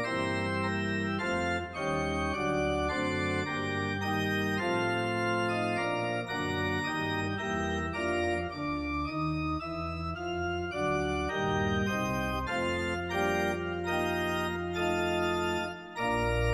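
Organ playing a lively prelude: held chords over deep bass notes, the harmony changing every second or so. Near the end it breaks off briefly, then a louder full chord is held.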